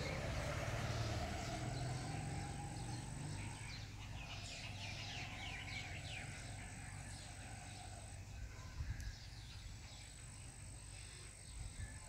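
Outdoor ambience with small birds chirping, a quick run of short chirps in the middle, over a low background rumble; a thin high steady tone comes and goes.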